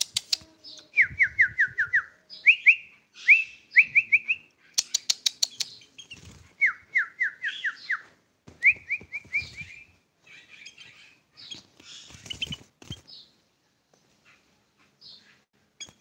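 A tame sooty-headed bulbul (kutilang) singing in repeated phrases of quick whistled notes, some in runs of five or six short notes that each slide downward, others rising. Two bursts of sharp clicks come between phrases, and the song grows sparse and quieter near the end.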